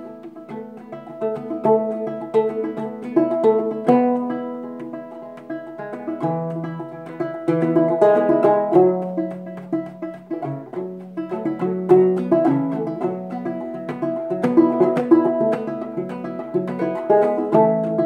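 Fretless gourd banjo played clawhammer (frailing) style: a steady run of plucked notes and brushed downstrokes.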